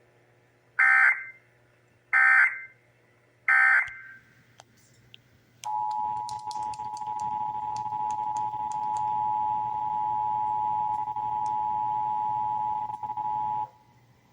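Emergency Alert System test tones. First come three short bursts of SAME digital data, a little over a second apart. Then the two-tone attention signal (853 and 960 Hz sounding together) holds steady for about eight seconds and cuts off.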